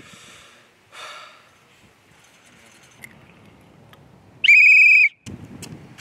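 Referee's whistle blown in one short, loud, slightly warbling blast about four and a half seconds in.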